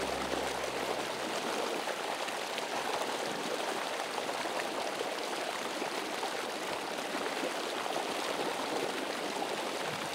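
Steady rush of river water spilling over a low diversion dam.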